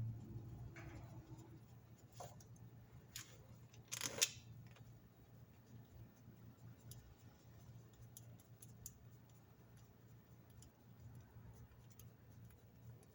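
Light clicks and clinks of hand tools and parts while the plastic thermostat housing is refitted, with a louder short clatter about four seconds in and scattered faint ticks after, over a faint steady low hum.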